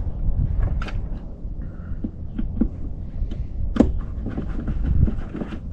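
Wind buffeting the microphone as a low, uneven rumble, with a few scattered sharp clicks and knocks of handling. The loudest click comes a little before four seconds in.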